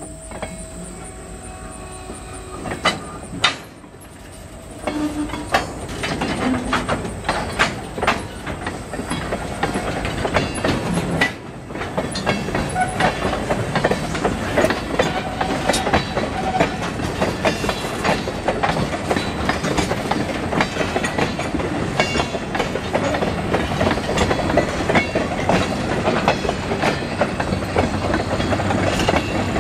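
Railroad tank cars rolling past, wheels clacking over rail joints with scattered knocks and rattles, growing louder over the first ten seconds or so and then staying steady.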